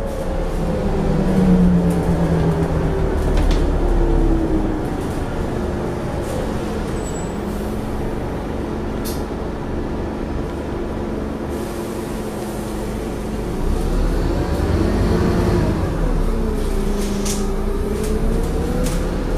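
Scania N230UD double-decker bus's diesel engine heard from inside the passenger saloon while under way. The engine note falls at first, runs steady for several seconds, then rises and falls twice in the second half as the bus pulls and changes speed.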